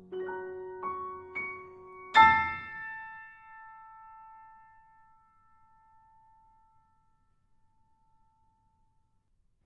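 Piano playing the closing bars of an art song: a few quick high notes, then a very loud final chord about two seconds in, held with the sustain pedal and left to ring until it dies away.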